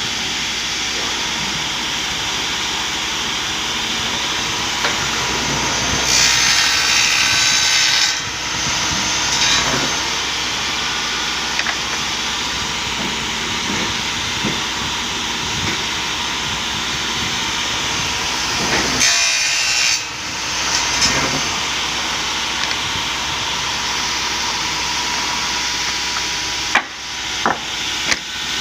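A power saw running steadily and cutting wood, louder during two stretches of cutting about six and nineteen seconds in, with a few sharp knocks near the end.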